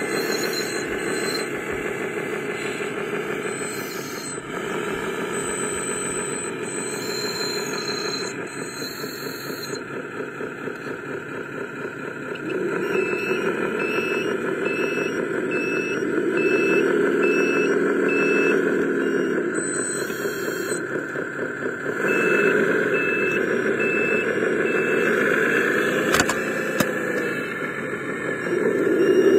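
Radio-controlled construction models working: a steady mechanical running noise, with a pitched whine that rises and falls twice. Midway comes a steady run of short beeps, about two a second.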